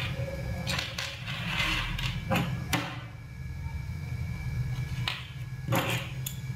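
Light clicks and taps of small plastic thermometer casing parts being handled and set down on a wooden table, about six in all, with a short rustle near the second mark, over a steady low background hum.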